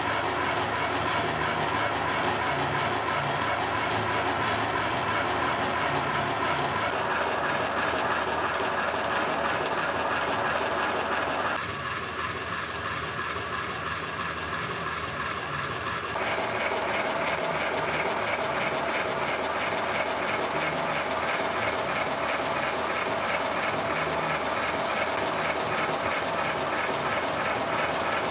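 Universal milling machine running with a hobbing attachment, cutting a spur gear: a steady mechanical running noise with a high, steady whine. Its tone shifts abruptly a few times.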